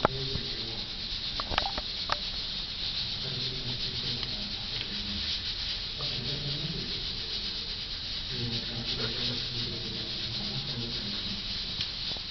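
A Kai Ken's paw and muzzle rubbing and scraping against another dog's head and fur, with a few sharp claw clicks about two seconds in. Under it is a steady hiss and a low hum that comes and goes.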